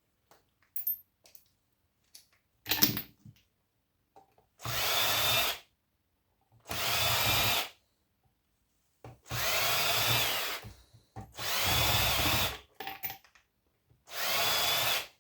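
Power drill-driver run in five short bursts of about a second each, its motor whine rising as each burst spins up, backing screws out of the machine casing. There is a single metal knock about three seconds in.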